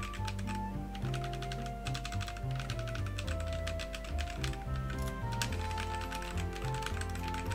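Typing on a mechanical keyboard fitted with Akko Lavender Purple tactile switches: quick, irregular keystroke clicks. Background music plays under the typing.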